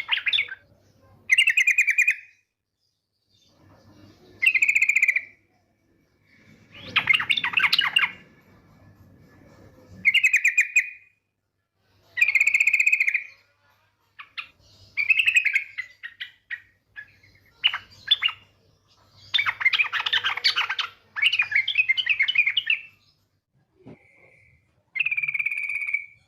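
Female yellow-vented bulbul (trucukan) calling in a fast, rattling chatter. The bursts last about a second each and repeat every one to two seconds.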